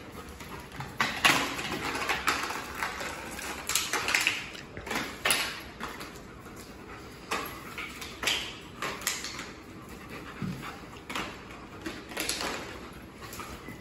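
A German Shepherd and a blue bay shepherd puppy play-fighting: irregular short bursts of dog whines and play noises, with the scuffle of paws on a tile floor.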